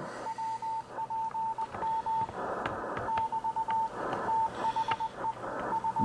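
Morse code from an ARRL code-practice transmission received over a ham radio: a single-pitched beep keyed on and off in dits and dahs, with a hiss of band noise behind it that swells twice.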